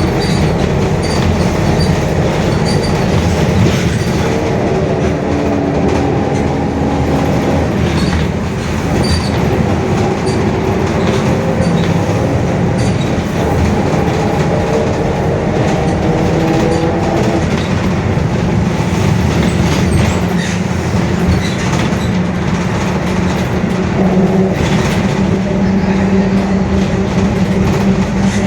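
Mercedes-Benz OF-1721 bus running under way, its diesel engine rumbling steadily. Over the rumble are several whining tones that shift up and down in pitch with speed: the differential growling.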